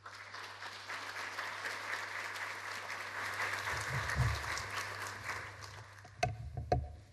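Audience applauding, building up and then dying away. A few low thumps come about four seconds in, and two sharp knocks near the end are the loudest sounds.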